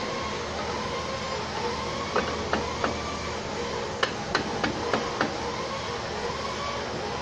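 Steel hammer tapping on metal inside a machine's blade chamber while a stationary blade is fitted: eight sharp, ringing taps in two runs, three and then five, over a steady machinery hum.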